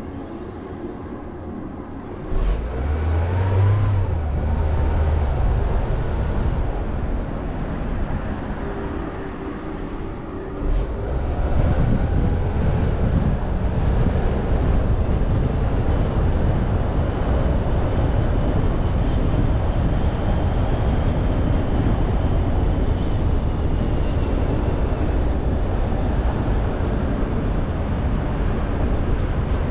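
Road and engine noise of a moving car: a steady low rumble that swells suddenly about two seconds in, grows louder again around eleven seconds in, and then holds steady.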